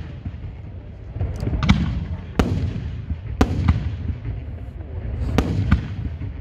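Aerial firework shells bursting in quick succession: about six or seven sharp bangs, some coming in close pairs, over a continuous low rumble.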